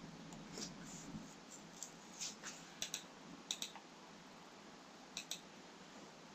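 Computer mouse buttons clicking over faint room tone: a few soft clicks, then three sharp quick pairs of clicks spread over the next few seconds.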